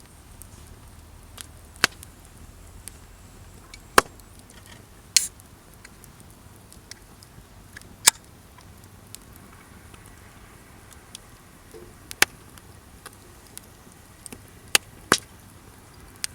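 Wood in a campfire crackling, with sharp loud pops every second or few at irregular intervals and fainter ticks in between.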